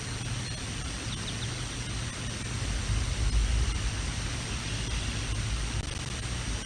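Strong wind buffeting an outdoor nest-camera microphone: a low rumble that gusts louder about three seconds in, over a steady hiss.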